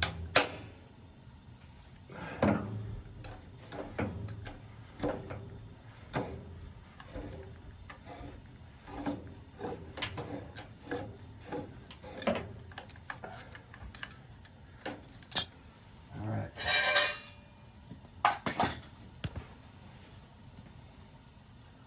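Metal tools and fittings clinking and knocking in irregular bursts during hand work on a gas water heater's control valve, with a few louder scraping bursts near the end.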